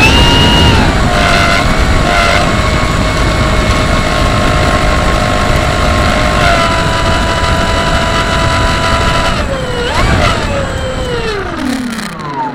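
Model tow plane's engine running steadily at high revs in flight, its pitch wavering slightly. About ten seconds in the pitch jumps, then falls steadily away to the end.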